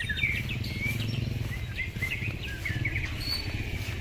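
White-rumped shama singing: a string of short whistled notes and quick gliding chirps, over a steady low rumble.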